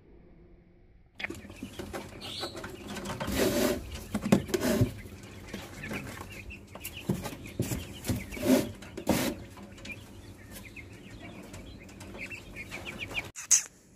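Rustling and knocking inside a wooden box, with short clucking, fowl-like squawks. The sound starts suddenly about a second in, with the loudest knocks around four and around eight to nine seconds in.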